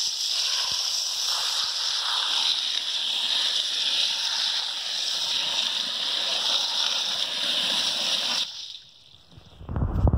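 Water jetting from a pistol-grip garden hose nozzle into a stainless steel bowl of aquarium gravel, a steady hiss and splash that cuts off about eight and a half seconds in. Just before the end, a hand sloshes the gravel in the water with low, uneven splashing.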